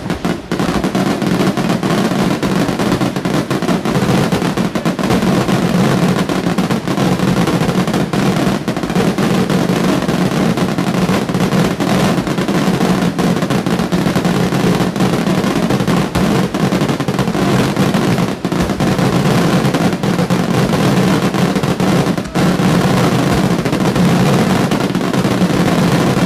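Fireworks display: an unbroken barrage of aerial shell bursts, with rapid bangs packed so close they run together into a continuous rumble.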